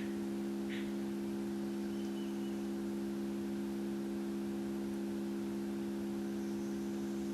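Tone generator sounding a steady 68 Hz tone, heard as a constant, unchanging hum.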